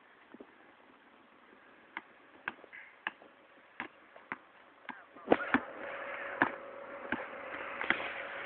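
A basketball bouncing on a hard court: a string of sharp, irregular knocks about every half second to second. About five seconds in, a steady hum and background noise rise beneath the bounces.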